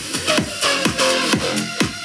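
Electronic dance music with a steady kick drum about two beats a second, played through an Anker Soundcore Mini 3 portable Bluetooth speaker at about 80% volume with its Bass Up setting on.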